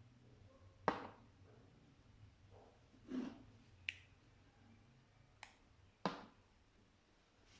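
Slime being handled, giving five short sharp pops and clicks spread a second or so apart, with quiet in between.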